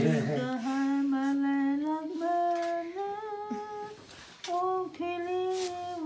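A person humming a slow tune in long held notes, stepping between a few pitches, with a brief pause about two-thirds of the way through.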